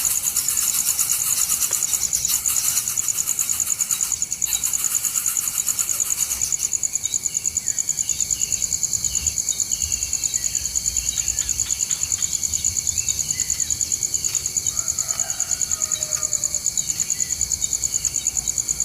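Insects, crickets or cicadas, trilling in a loud, steady, high-pitched chorus with a fast pulse. Scattered short bird chirps come in over it from about seven seconds in.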